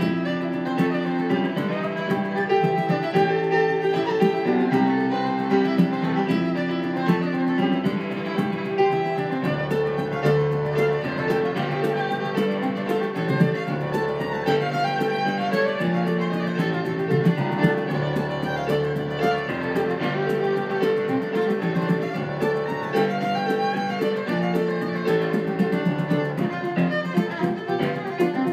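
Fiddle and Yamaha digital piano playing a traditional-style tune in 6/4 time, the fiddle bowing the melody over piano accompaniment.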